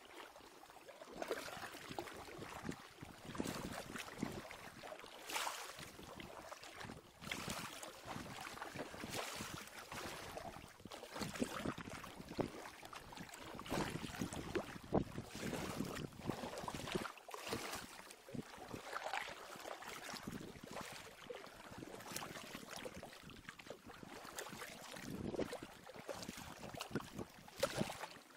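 Double-bladed kayak paddle dipping and pulling through river water in a steady rhythm, splashing about every second and a half.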